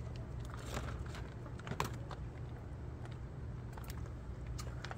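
Scattered light clicks and rattles of dry cat food, over a steady low background hum.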